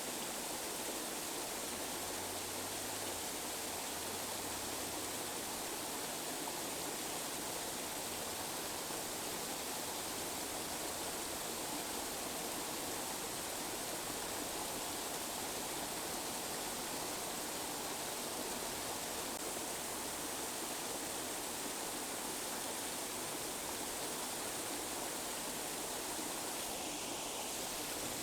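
Steady tinnitus-masking noise: an even, unchanging hiss spread from the mids up through the highs, thin in the bass.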